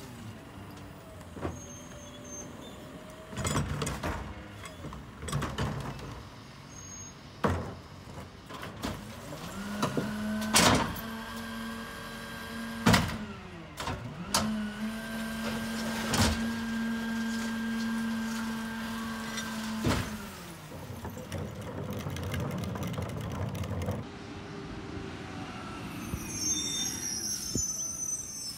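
Rear-loading garbage truck running its hydraulic packer: the engine speeds up into a steady whine while the blade cycles, then winds down, with loud metal clanks and bangs from the hopper. Near the end the sound changes to a quieter street with a distant truck.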